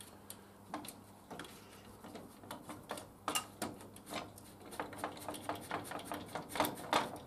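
Small irregular metallic clicks and ticks as a nut is spun by hand onto a threaded bar passed through steel hangers, the clicks coming faster in the second half.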